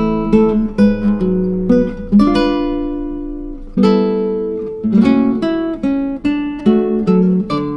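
Acoustic guitar background music, chords picked and strummed, with one chord left ringing and fading about two seconds in.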